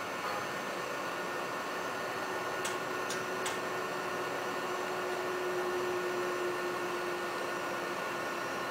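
Steady hiss and hum of a desktop vacuum evaporator's pumping system while its chamber is vented, with a faint steady tone and two light clicks a few seconds in.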